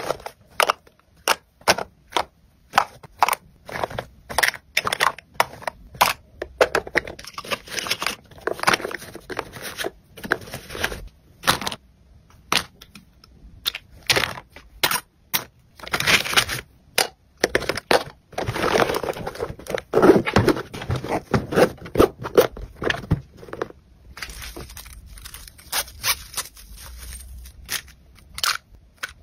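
Makeup items being packed by hand into a fabric-lined cosmetic bag: a quick run of sharp clicks and taps of plastic cases knocking together, mixed with crinkly rustling of packaging and fabric. The rustling thickens for a few seconds past the middle.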